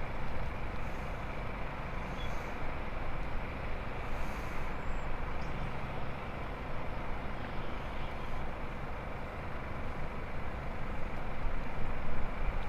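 Steady outdoor background rumble with no distinct events.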